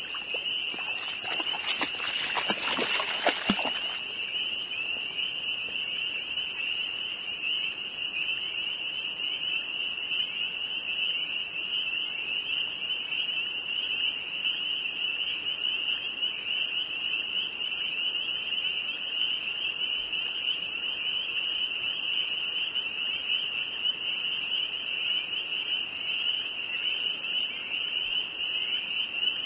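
A dense chorus of spring peepers, many frogs giving high, shrill peeps that merge into one continuous ringing. About a second in, a cluster of sharp noises lasts a couple of seconds over the chorus.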